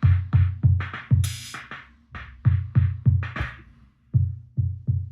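Arturia DrumBrute Impact analog drum machine playing a beat: deep kick drum hits about three a second with snare-type hits, and a bright hissing cymbal-like hit about a second in. The pattern thins out near the end.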